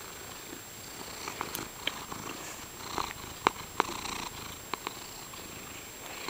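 Domestic cat purring close to the microphone, with a few sharp clicks and knocks about halfway through as she rubs against the camera.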